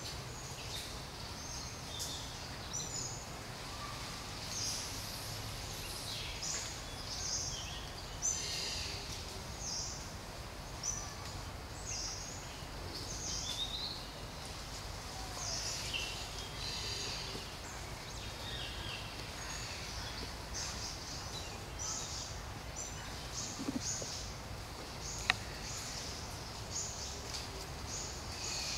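Woodland ambience: small birds give many short, high chirps throughout, over a steady low background rumble. A single sharp click sounds about 25 seconds in.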